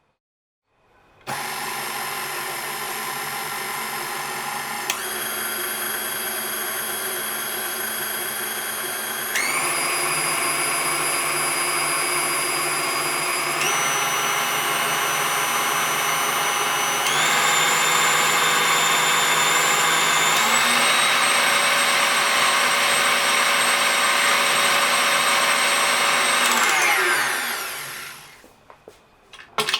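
KitchenAid Artisan tilt-head stand mixer running, its motor hum stepping up in pitch and loudness five times as the speed is raised setting by setting, then winding down as it is switched off near the end.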